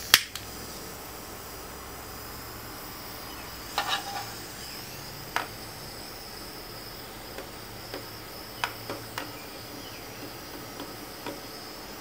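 Handheld butane pen torch lit with a sharp igniter click, then its flame hissing steadily with a thin high whistle while it shrinks heat-shrink tubing over soldered wire joints. A few light clicks and taps from the wires and torch being handled.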